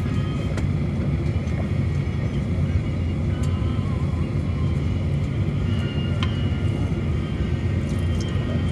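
Steady low rumble inside a United Boeing 737 cabin as the airliner taxis with its engines at idle, with a few faint clicks.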